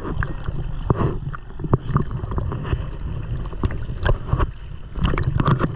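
Choppy sea water sloshing and slapping against a camera held at the surface, with irregular splashes all through and a low rumble of wind and water on the microphone.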